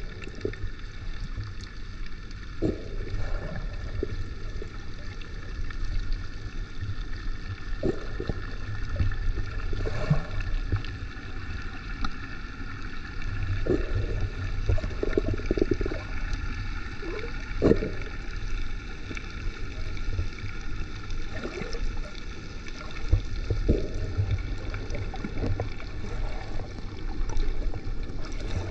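Underwater ambience heard through a submerged camera: a steady, muffled low rumble of moving water with scattered brief gurgles.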